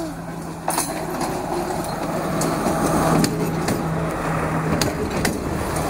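Diesel passenger train passing close alongside the track: a steady low engine hum with wheels clacking over the rail joints every second or so.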